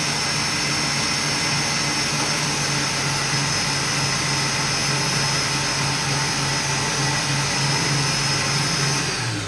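Stand mixer running at speed, whipping egg whites into meringue: a steady motor hum with a high whine. Near the end it is switched off and the motor winds down with a falling pitch.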